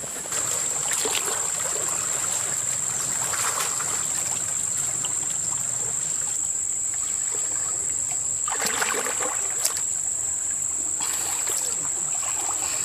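Water sloshing and splashing in several bursts, typical of people crawling through a water-filled pit, over a steady high-pitched whine.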